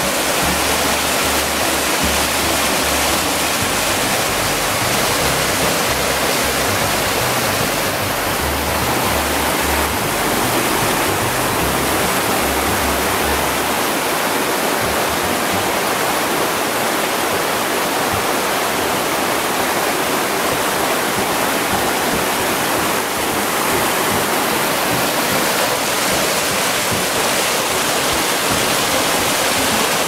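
Waterfall: a loud, steady rush of white water pouring over rocks into a churning pool.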